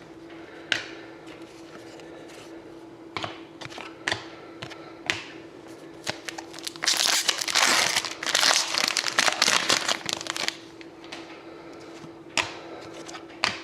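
A trading card pack wrapper being crinkled and torn open, loudest for a few seconds in the middle, with scattered taps and clicks of cards being handled; a steady faint hum runs underneath.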